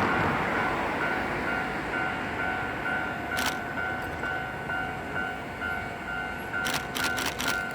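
Level-crossing warning bell ringing in a steady, quick repeating ding while the rumble of a passing 45-ton-class electric locomotive slowly fades. A few sharp clicks come about halfway through and again near the end.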